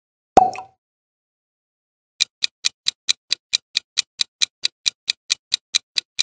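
A single sharp sound-effect hit with a brief ringing tone, then after a short silence an even countdown-clock ticking at about four to five ticks a second, timing the quiz answer.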